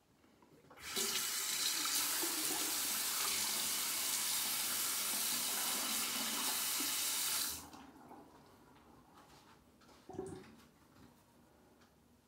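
A sink tap runs steadily for about seven seconds, starting about a second in and shut off sharply. A brief, softer noise follows a couple of seconds later.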